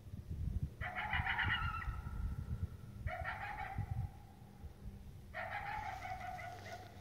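A coyote giving three long barking calls about two seconds apart. Each opens harsh, then trails into a drawn-out, slightly falling tone. Low rustling noise runs underneath.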